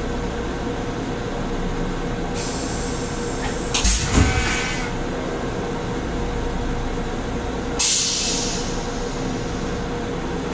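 Steady hum of an MTA Metro-North M7 railcar's ventilation and onboard equipment, heard inside its small restroom, with a steady tone running through it. A hiss starts about two and a half seconds in and swells into a louder rush with a thump about four seconds in; another short hiss comes about eight seconds in.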